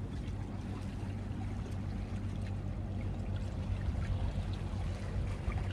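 Small waves washing against breakwater rocks: a steady, even wash of water.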